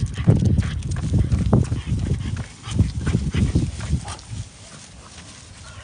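French bulldog breathing noisily and sniffing in quick, irregular bursts, which fade out about four seconds in.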